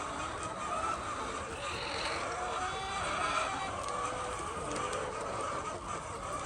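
A flock of laying hens clucking and cackling together, many overlapping calls in a steady din.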